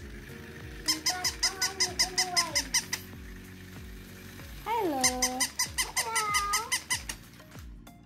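Battery-operated walking plush puppy toy running: rapid, even clicking of its walking mechanism, about six clicks a second, in two spells, with high squeaky electronic yelps over the clicking.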